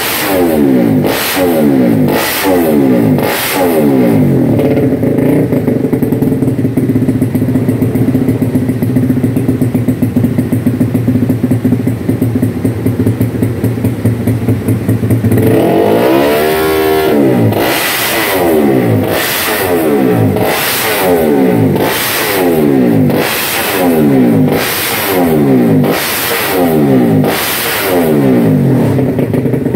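Honda GTR race motorcycle's single-cylinder engine revved on the stand in quick throttle blips about once a second. It is then held at a steady fast idle for around ten seconds, climbs sharply to one high rev, and goes back to regular blips.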